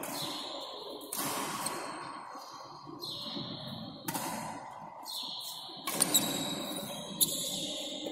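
Badminton rackets striking a shuttlecock back and forth in a rally, a sharp hit about every one to two seconds, with the hardest smacks around six and seven seconds in.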